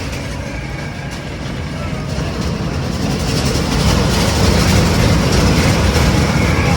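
Steady rumble of a moving vehicle, growing louder about three seconds in.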